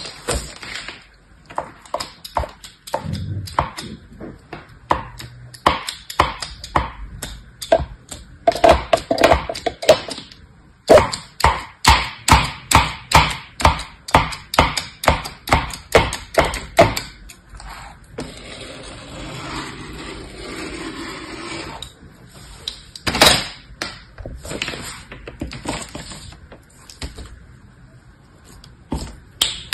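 Rope of green slime being sliced with a thin craft blade: a long run of sharp, crisp clicks, about two a second at the steadiest, one for each cut. Near the middle a softer, steadier sticky noise follows as the slime is worked.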